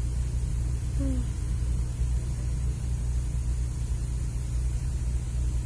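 Steady low rumble of a moving car heard from inside the cabin: engine and road noise. A brief short voice sound comes about a second in.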